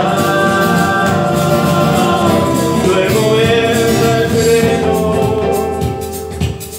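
Live acoustic folk band playing: strummed acoustic guitar and keyboard under a long held melody line with violin. The music thins out briefly near the end.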